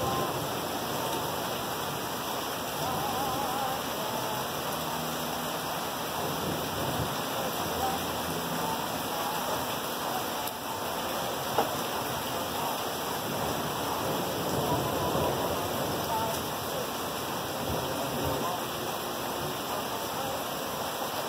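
Steady rain falling as a continuous even hiss, with one sharp tap about halfway through.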